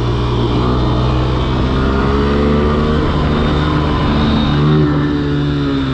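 Small dirt bike's engine running at a steady cruise while riding, its pitch easing up and down slightly.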